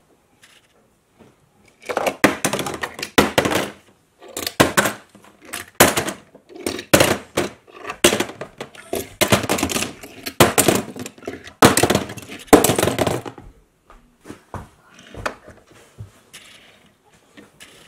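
Die-cast toy cars dropped one after another into a plastic bin, clattering against the plastic and against each other. The clatter starts about two seconds in, comes in quick clusters, and thins out to a few quieter knocks over the last few seconds.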